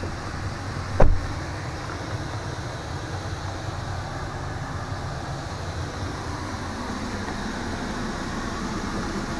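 A single sharp thump about a second in, over a steady low rumbling background noise.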